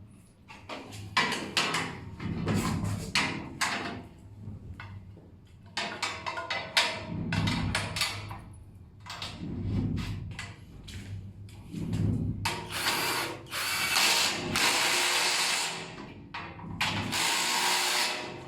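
Assembly work on a metal sewing-machine stand and table: a run of sharp knocks and clicks from parts and tools. Later a power drill runs in two long bursts, the first about three seconds long and the second shorter, near the end.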